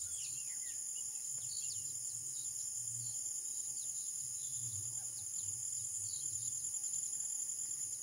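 Steady high-pitched insect buzzing, with scattered faint chirps of small birds and a low wavering rumble underneath.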